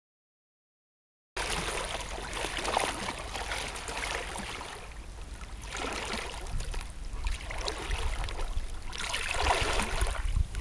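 Water splashing as a person lying on a floating rescue stretcher paddles with arm strokes, swelling about every three seconds, over a low rumble of wind on the microphone. It starts after about a second and a half of silence.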